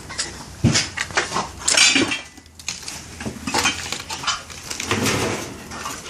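Irregular clattering and knocking of hard objects, a string of sharp rattles and knocks with a brief lull partway through.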